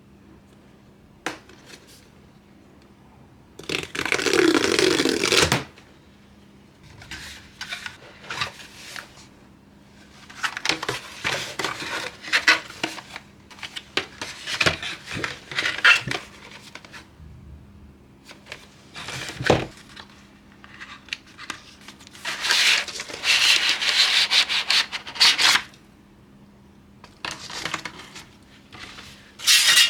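Cardboard box and packaging being handled and slid apart while a computer case is unboxed: irregular bursts of rubbing and scraping with a few sharp knocks in between.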